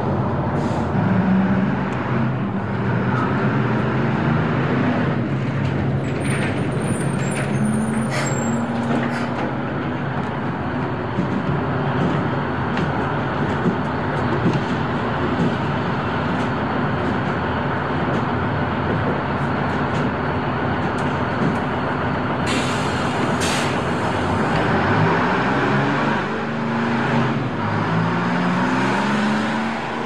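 Bus terminal ambience: bus engines running and revving up as buses pull in and away. There is a short hiss of air brakes about three-quarters of the way through.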